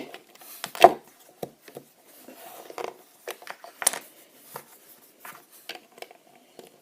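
Plastic Lego bricks and plates being handled and pressed together: irregular small clicks and knocks, a few louder snaps among them.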